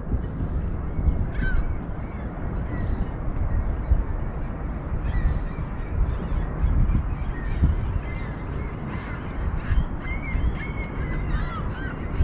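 Many short bird calls, some bending up and down in pitch, more frequent in the second half, over a steady low rumble of wind on the microphone.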